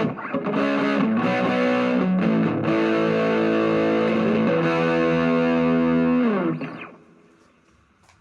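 Epiphone SG Special electric guitar played with distortion through an amp and speaker cabinet: a few chord changes, then one chord held for several seconds before dying away about seven seconds in.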